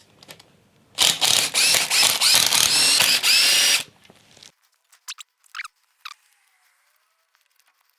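A power tool runs for about three seconds while undoing 10 mm bolts on a Subaru EJ20 engine, its motor pitch sweeping up again and again. A few light metal clicks follow.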